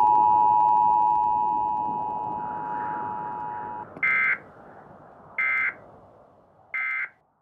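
A steady electronic tone starts sharply, fades slowly and cuts off about four seconds in. It is followed by three short electronic beeps, evenly spaced about a second and a half apart, over a faint fading hiss.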